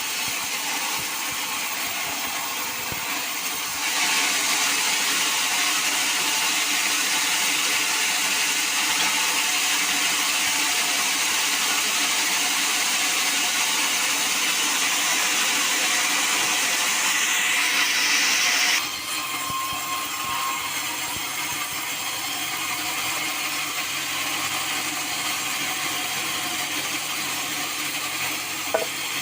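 Sawmill saw running steadily. A louder, hissier stretch starts about four seconds in and drops back suddenly about nineteen seconds in.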